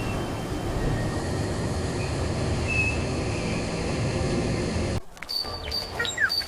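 Steady roar of a waterfall's rushing water that cuts off suddenly about five seconds in, giving way to birds chirping.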